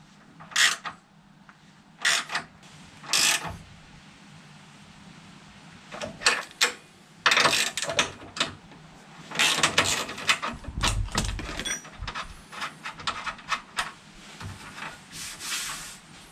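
Spanners turning a hand rivnut (nutsert) setting tool in a car's steel front cross member: short metal clicks and rattles, a few at first and then in quick runs. There is a dull knock about eleven seconds in.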